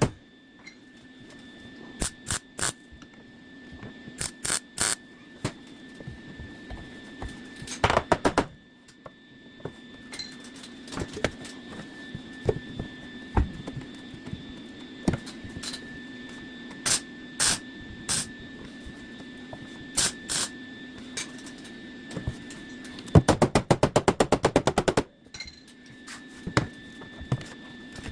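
Welder laying short plug welds through drilled holes to tack a steel patch panel into a car's floor and inner rocker: a string of brief crackling bursts with pauses between them, and one longer burst of rapid crackle about 23 seconds in. A steady hum and a faint high whine run underneath.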